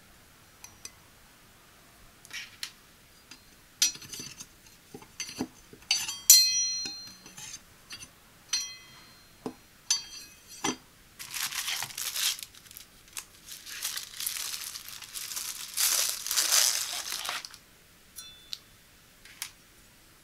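Stainless-steel knives and shears clinking and tapping, several strikes ringing briefly. Then about six seconds of plastic packaging crinkling, with a few last clicks.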